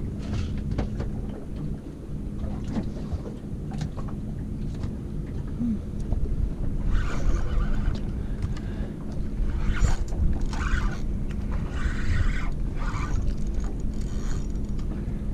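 Wind rumbling on the microphone aboard a small boat, with a faint steady hum; from about halfway on, water slaps and splashes against the hull roughly once a second.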